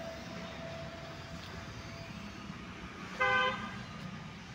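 A single short vehicle horn toot about three seconds in, over a steady low background hum.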